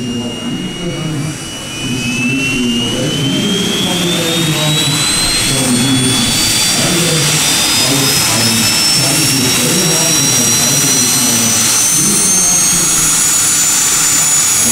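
JetCat P-400 model jet turbine spooling up, its high whine rising steadily in pitch, and getting louder from about two seconds in.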